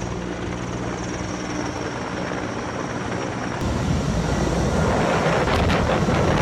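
Helicopter engine and rotor giving a steady hum. About three and a half seconds in, the sound switches abruptly to a louder, even rushing noise like wind on the microphone.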